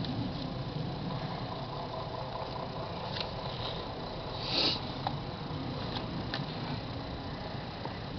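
Steady low background rumble, engine-like, with a few faint clicks and a short hiss about four and a half seconds in.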